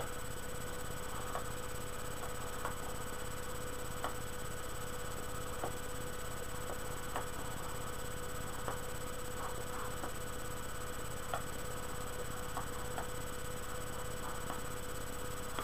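Steady electrical hum and hiss of the recording, with faint soft clicks scattered about once a second.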